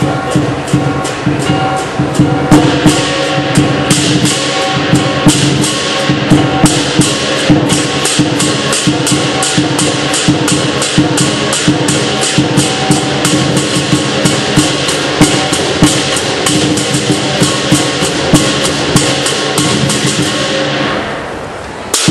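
Lion dance percussion band: a large Chinese drum with cymbals and gong beating a fast, steady rhythm, the metal ringing on between strikes. The sound dips briefly near the end.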